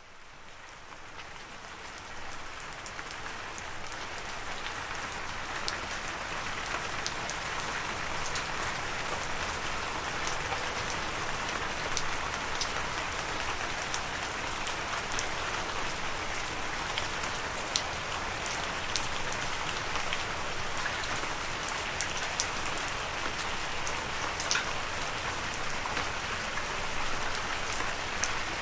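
Steady rain falling on a surface, a dense hiss with individual drops ticking through it, fading in from silence over the first few seconds and then holding even.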